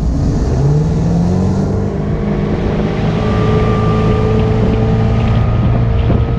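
Sterndrive boat engine driving an Alpha One outdrive, accelerating hard from idle: its pitch rises over the first couple of seconds as the throttle opens, then holds steady as the hull climbs toward plane. Water wash and wind on the microphone run under it.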